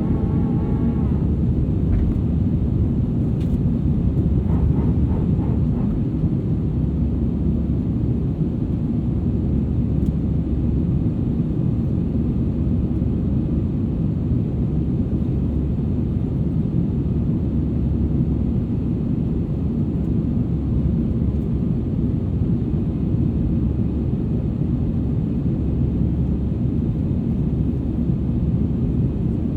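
Airbus A320 jet airliner cabin noise heard from a rear seat: a steady, deep rumble of the engines and airflow.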